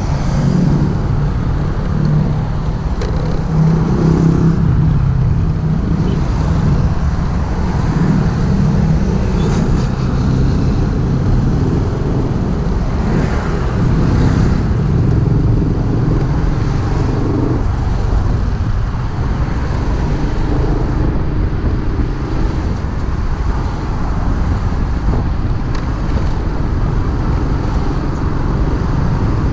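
Freshly overhauled motorcycle engine running on the move, its pitch rising and falling with the throttle, over a steady low rumble of road noise and traffic.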